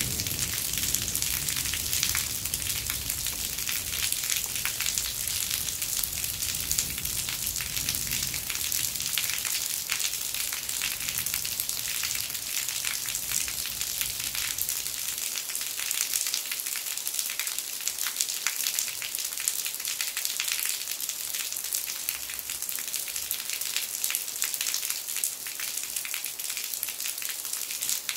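Rainwater falling from the tiled eaves of a traditional Korean temple hall in steady rain: a dense, unbroken patter of drops and splashes.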